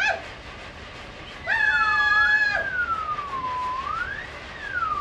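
Foley whistling for a diving cartoon plane: a single pure whistled tone that wavers, sinks slowly, then sweeps up and back down like a siren. About one and a half seconds in, a steady buzzy note sounds with it for about a second.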